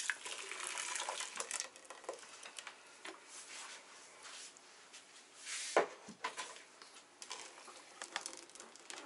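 Blended tomato juice pouring from a plastic blender jug into a stainless steel pot, then clicks and knocks as the jug is handled and set on its base, with a louder knock about six seconds in.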